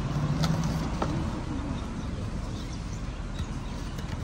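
Paperboard pastry box being opened by hand: a few light cardboard ticks and rustles of the flaps and wax paper, over a steady low rumble.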